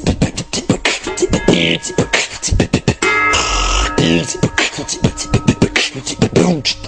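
A beatboxed breakbeat: mouth-made kicks, claps and snares in a quick, even rhythm, with voiced bass and synth lines layered over them and a burst of hiss about three seconds in.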